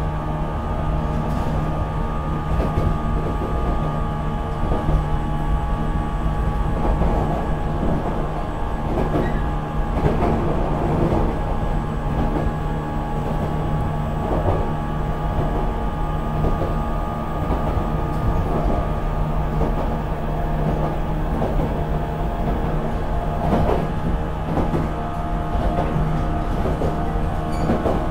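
JNR 475 series electric multiple unit running at speed, heard from the vestibule of its motor car: MT54 DC traction motors and 19:80 reduction gears give a steady whine over the rumble of wheels on rail.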